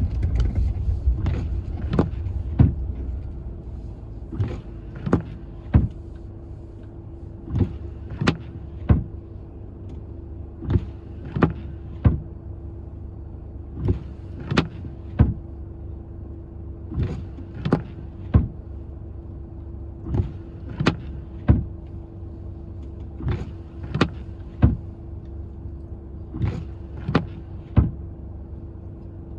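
Inside a car: a low rumble that dies away over the first few seconds, then a steady hum under a sharp clicking that comes in groups of three, one group about every three seconds.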